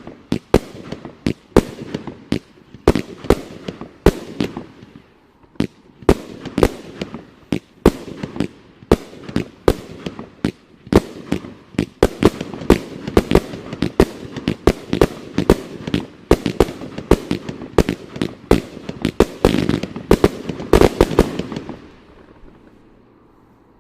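A 36-shot consumer (1.4G) firework cake firing: a rapid run of sharp reports, several a second, over a rustling haze. It stops about two seconds before the end.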